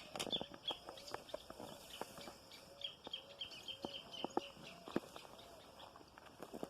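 Birds calling: a run of short, high, falling chirps over a lower arched call note repeated about twice a second, with scattered clicks and rustles.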